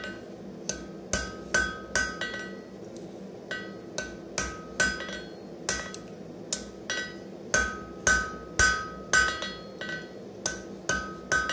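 Ball-pein hammer striking a small red-hot piece of steel on an anvil, held in tongs. It gives a steady run of blows, about two a second, with a short pause about three seconds in. Each blow rings with a clear metallic tone.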